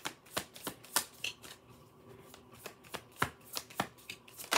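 A deck of tarot cards being shuffled hand to hand: a run of irregular sharp card snaps, a few each second, the loudest about a second in and near the end.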